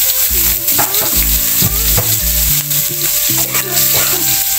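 Food frying in hot oil in a pan, with a steady sizzle and the clicks of stirring. Low steady notes of background music change underneath.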